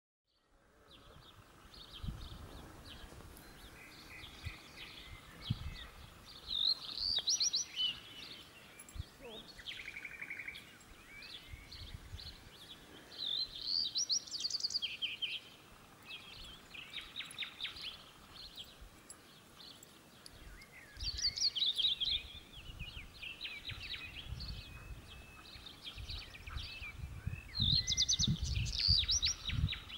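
Outdoor birdsong ambience: several songbirds singing in short rapid chirping phrases that recur every several seconds, over a soft low rumble that comes and goes.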